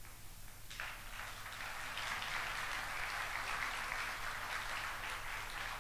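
Audience applauding, starting about a second in, holding steady, and thinning out near the end.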